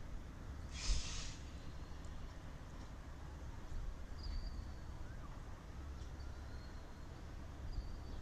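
Outdoor microphone ambience: a steady low wind rumble, with a short hiss about a second in and a few faint, high, thin chirps in the second half.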